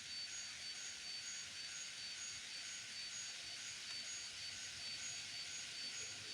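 Model railway level crossing's electronic warning signal: two high tones that alternate evenly, like a Japanese crossing's 'kan-kan', over a steady hiss.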